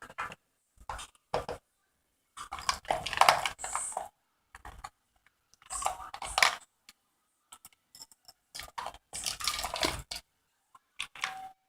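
Small plastic toy figures and a plastic toy fridge clattering as they are handled, in three short bursts of rattling with quiet gaps between.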